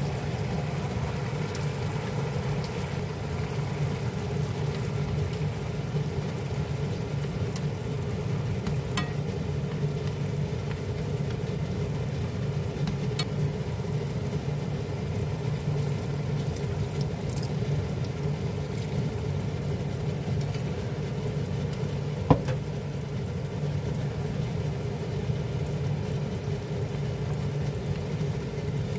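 Shrimp, zucchini and pollock roe frying and simmering in a wok, stirred with wooden chopsticks, over a steady low hum. A few light clicks of the chopsticks on the pan, the sharpest about 22 seconds in.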